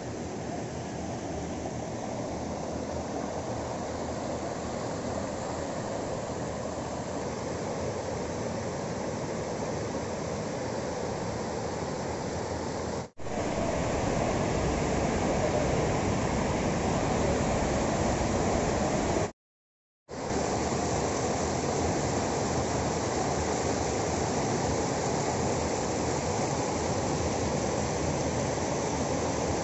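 Muddy floodwater rushing fast over a road and pouring down stone steps and a concrete channel: a steady rushing noise. It breaks off for a moment about a third of the way in and comes back louder, then drops out completely for about a second a little later.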